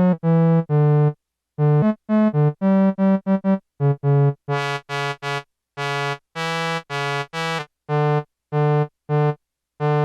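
Yamaha SY-2 vintage synthesizer playing a string of separate notes in a low-middle register, each starting and stopping abruptly; the instrument is out of tune. From about four and a half seconds in to about seven and a half seconds the tone turns much brighter, then goes duller again.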